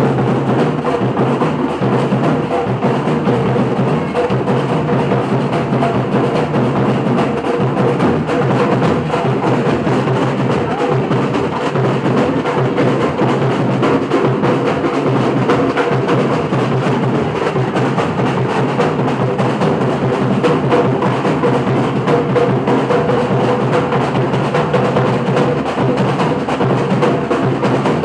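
Batucada percussion ensemble (a samba bateria) playing a dense, continuous groove of drums and hand percussion at an even loudness, without a break.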